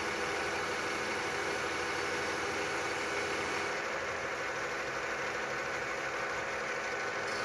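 Inverter-driven lathe spindle running steadily as a carbide insert turns a metal workpiece: a continuous machine whine of many steady tones over a noisy hiss. The highest part of the hiss dims about halfway through and comes back near the end.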